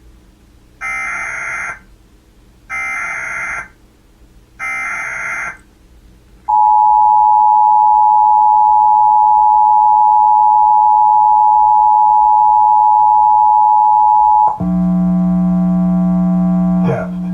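Emergency Alert System Required Monthly Test signal: three short bursts of SAME header data tones, each about a second long, then the two-tone EAS attention signal (853 and 960 Hz together) held steady for about eight seconds. A low buzzing tone follows for about two seconds before a voice begins near the end.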